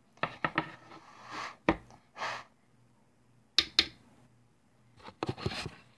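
Handling of a makeup brush and eyeshadow palette close to the microphone: several sharp clicks and taps, with short rubbing scrapes in between.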